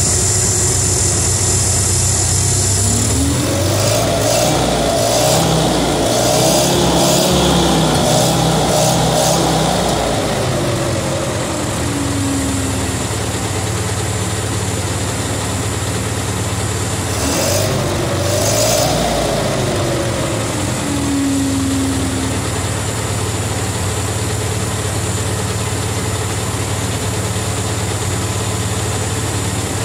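1950 Towmotor LT40 forklift's Continental flathead four-cylinder engine running at idle and revved up by hand twice, each time rising in pitch over a few seconds and settling back. It runs a little wheezy, which the owner puts down to low compression and some wear.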